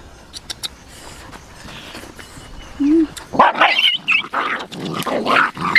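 A few faint clicks, then from about three and a half seconds in a run of loud, harsh animal sounds in quick irregular bursts.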